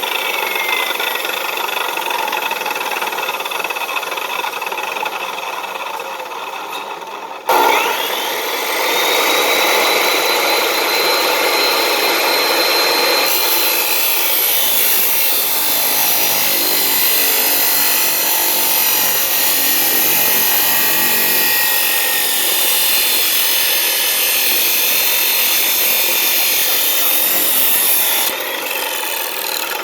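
Makita 14-inch abrasive chop saw: the motor winds down, is switched on again about seven seconds in and whines up to speed, then the abrasive wheel grinds through a plastic Xbox 360 controller for about fifteen seconds before the level drops near the end.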